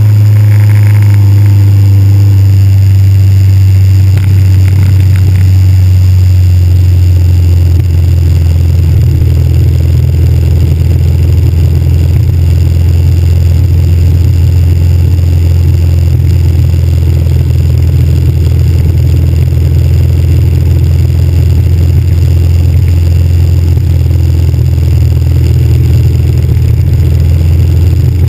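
Cruiser motorcycle riding at a steady pace: a loud, steady low rumble from its engine mixed with wind buffeting the handlebar-mounted camera's microphone.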